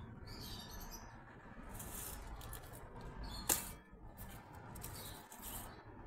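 Dry palm fronds and grass rustling in short scrapes as they are cut and gathered with a knife, with one sharp click about three and a half seconds in.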